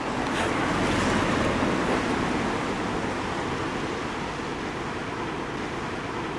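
Steady rushing outdoor background noise, swelling a little about a second in.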